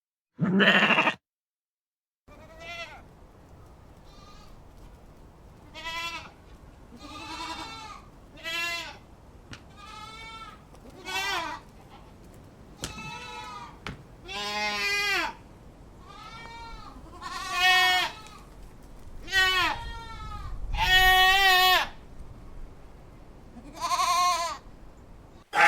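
A goat bleating over and over: more than a dozen separate calls of varying length and loudness, some short and some drawn out. The loudest, longest bleats come about two-thirds of the way through.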